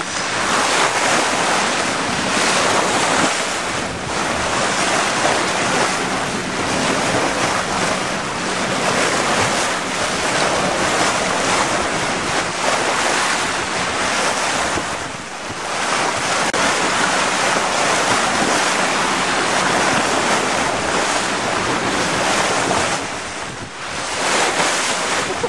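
Sea water rushing and hissing along a sailboat's bow as it moves under way, with wind buffeting the microphone. The rush eases briefly twice, about halfway through and near the end.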